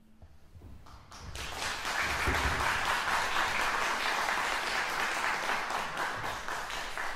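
Audience applauding, breaking out about a second in just after the last faint note of the cello and piano dies away, then holding steady.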